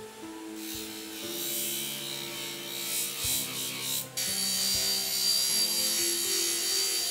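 MD-125 1/4 HP bench grinder with a buffing wheel polishing a metal lamp part: a steady high rubbing hiss begins about half a second in, stops briefly just after four seconds, then comes back steadier with a thin high whine. Background music plays throughout.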